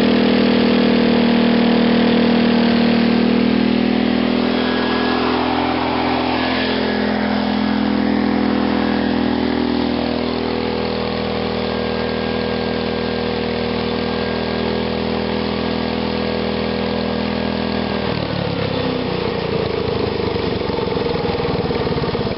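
Small single-cylinder gasoline engine, fed through a GEET plasma fuel-reactor, running at a steady speed. About 18 seconds in its speed drops and it turns uneven, which the owner puts down to too lean a mixture.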